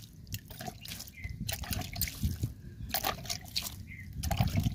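Water sprinkled over freshly planted seedlings, splashing onto the soil in irregular spatters.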